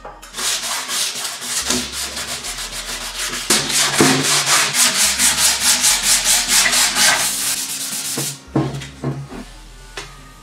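Hand sanding of a metal motorcycle part: rapid back-and-forth scraping strokes, about four a second, that grow louder partway through and stop abruptly near the end. A few light knocks follow.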